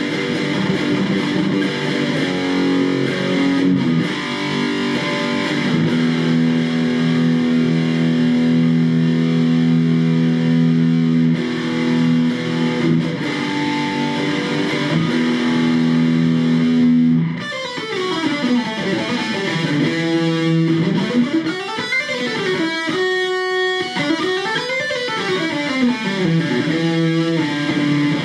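Electric guitar played through an AMT B1 JFET distortion preamp pedal. For most of the first two-thirds it holds long, ringing distorted chords; after that the notes slide up and down in pitch again and again.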